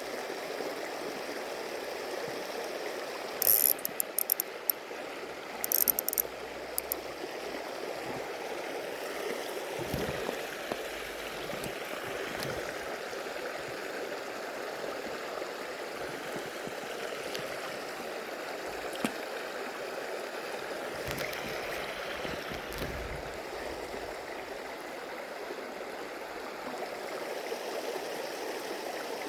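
Stream water running steadily over shallows, with two short bursts of rapid mechanical clicking a few seconds in.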